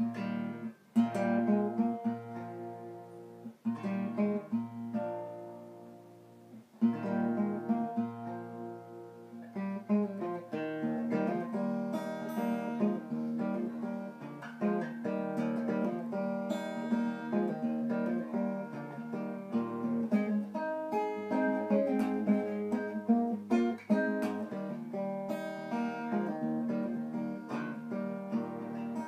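Regal RD 30 single-cone resonator guitar fingerpicked: a melody of plucked notes over a sustained bass line.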